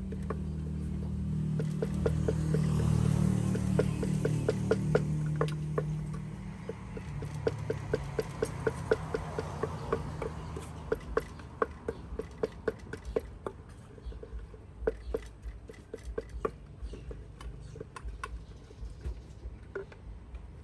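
Pestle pounding papaya salad in a mortar: quick, regular knocks about three a second that become more irregular in the second half. A low rumble swells and fades under the first several seconds.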